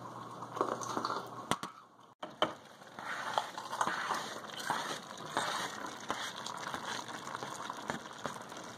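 Ground meat frying in a pan, a steady crackling sizzle, as chopped bell peppers are tipped in off a plastic cutting board. It begins abruptly about two seconds in.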